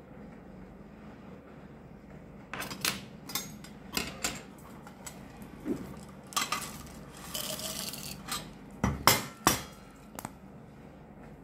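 Capsules clicking and sliding across a metal tray and pouring into an amber glass bottle, with scattered clicks and knocks and a longer rattling slide in the middle. A few sharp clicks near the end as the bottle's plastic cap is put back on.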